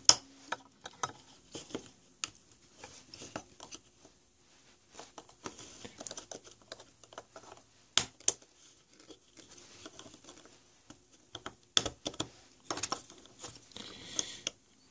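Small clicks, taps and scrapes of a charge controller's circuit board and spring terminal connectors being pressed into their plastic case with fingers and a screwdriver. Scattered sharp clicks stand out at the start, about eight seconds in and around twelve seconds in, with scratchy scraping just before the end.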